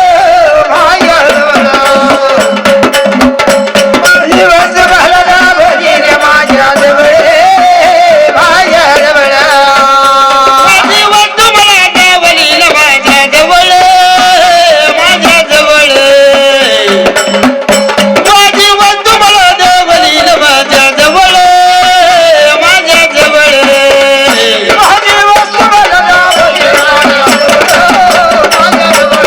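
Devotional kirtan music: a chorus singer's voice carries a gliding melody over a steady drone note, with a continuous hand-drum and percussion beat.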